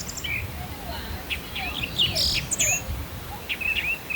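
Rapid bird-like chirping: many short chirps and quick slides in pitch, with a brief hiss about halfway through.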